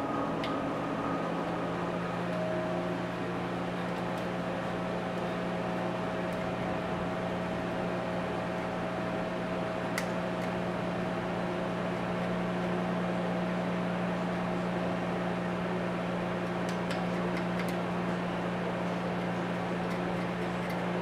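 Steady electrical motor hum, like a fan running, with a few faint clicks of a small metal tool scraping stuck old gasket off a small two-stroke carburetor.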